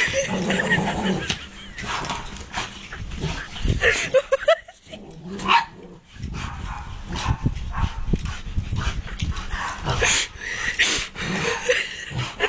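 Dogs playing with a large ball: short barks, yips and whines among repeated knocks and scuffs of the ball and paws on paving slabs.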